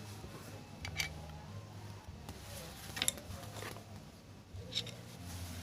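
A few faint, scattered clicks and taps of sewing machine parts being handled during a repair, over a low hum.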